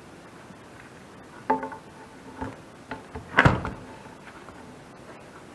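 A metal pry bar and scraper knocking against the metal clean-out door of an outdoor wood furnace as the old gasket is cleared from its channel. There is a short ringing clink about a second and a half in, then a few lighter knocks, and the loudest knock comes about three and a half seconds in.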